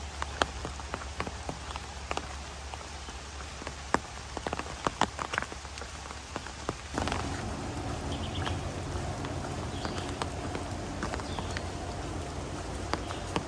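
Rain falling, with single drops tapping sharply close to the microphone. About halfway through, a steadier low noise comes in under the rain.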